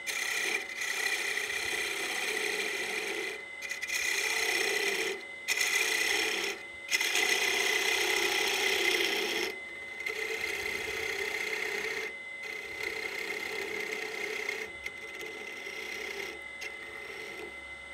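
Wood lathe turning, with a gouge cutting the end of a small spinning workpiece to clean up its top. It makes a scraping hiss in strokes of one to three seconds, broken by brief pauses as the tool lifts off, over the lathe's steady whine.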